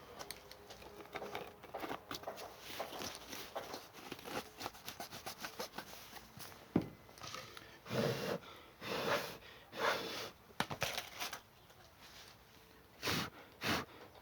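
Short breaths blown in puffs onto drying patch glue on a rubber inner tube, to make it dry faster. Small clicks and rustles of the tube being handled come first, then several puffs about halfway through and two more near the end.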